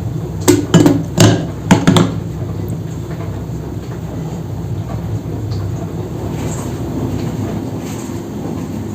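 A quick run of about five sharp knocks and clatters in the first two seconds, over a steady low rumble.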